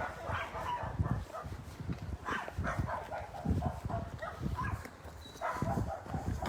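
A dog barking in short bursts, with irregular low thumps of footsteps.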